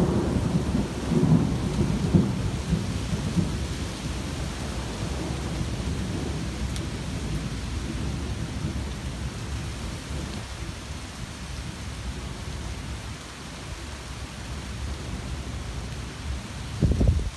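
Thunderstorm: a roll of thunder fading away over the first few seconds, then steady rain with a low rumble underneath, and a short low rumble again near the end.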